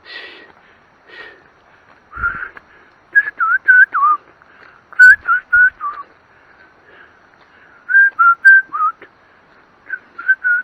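Short, loud whistled notes in quick runs of three to five, each note bending up or down, repeated several times with pauses between.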